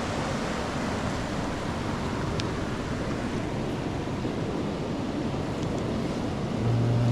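Steady rushing of a mountain stream, an even wash of water noise.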